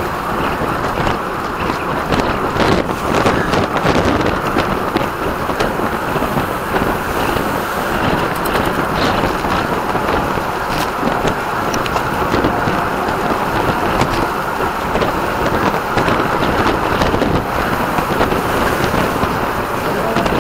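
Heavy wind noise on the microphone of a camera moving at bicycle-racing speed, steady and loud, with a few sharp clicks scattered through it.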